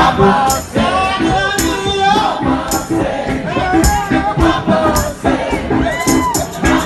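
Live blues-rock band playing. An amplified harmonica, cupped against a hand-held microphone, plays a lead line whose notes bend in pitch, over a steady drum beat and percussion.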